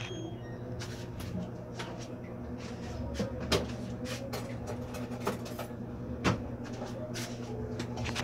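A series of light knocks and clicks, scattered irregularly, the loudest about six seconds in, over a steady low hum.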